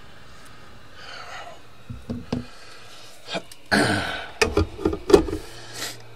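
Several knocks and short clattering handling sounds as soldering tools are moved and set down, the loudest about five seconds in, over a faint steady hum.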